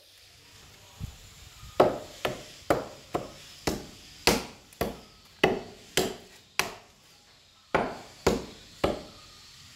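Hand hammer striking a large dried tree stump: a run of about fourteen sharp wooden knocks, roughly two a second, with a short pause about seven seconds in.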